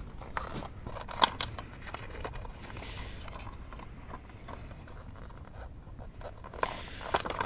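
Quiet handling sounds: scattered small clicks and scrapes of parts and packaging being handled, with a sharper click about a second in and a few more near the end.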